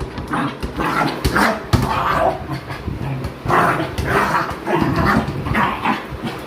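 Jack Russell terrier giving a rapid run of short barks and yips, about two a second, with a few sharp knocks mixed in.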